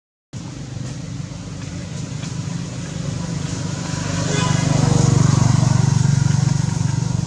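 Low engine rumble of a passing motor vehicle, starting after a brief gap, growing louder to a peak about five seconds in and then easing a little.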